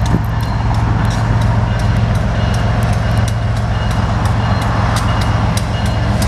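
Grade-crossing bell ringing in a fast, even rhythm over the steady low engine rumble of an approaching freight train led by a BNSF ES44C4 and a UP SD70ACe diesel locomotive.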